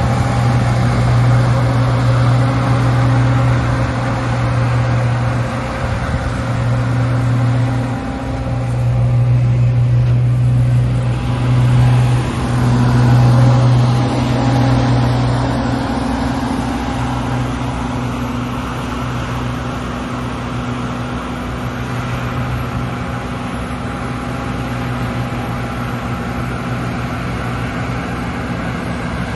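Large diesel engine of harvest machinery running steadily under load: a deep, even engine hum with machinery noise over it, easing off a little about halfway through.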